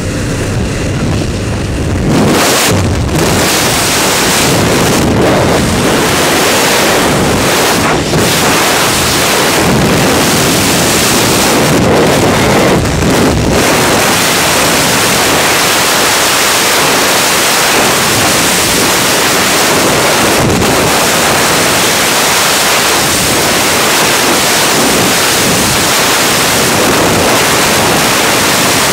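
Freefall wind blasting over a helmet camera's microphone: a loud, steady rush. About two seconds in it takes over from the lower drone of the jump plane's cabin as the jumper leaves the aircraft.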